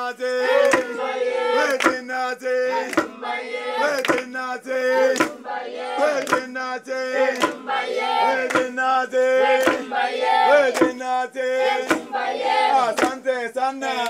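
A group singing a rhythmic chant, with hand clapping and the knock of a wooden pestle pounding coffee beans in a wooden mortar about once a second.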